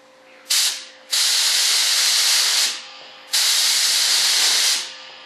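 Air spray gun hissing in three bursts as it sprays a thin coat of Partall Film #10 (PVA) mold release: a short one about half a second in, then two of about a second and a half each.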